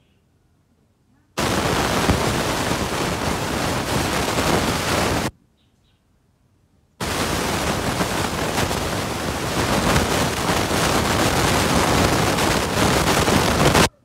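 A loud, even rushing hiss in two long stretches, each starting and stopping abruptly, with near silence between them.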